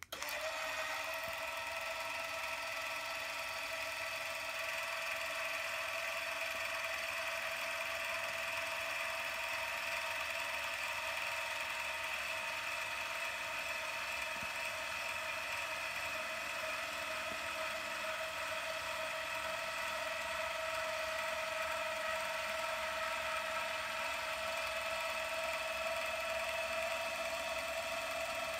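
Two electric linear actuators extending together, their motors and gearing running with a steady whine as they raise a two-stage TV lift. The whine starts suddenly at the outset and holds steady.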